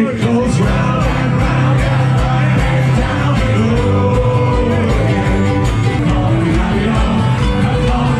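Live band playing loud music: electric guitar and bass over a steady beat, with singing.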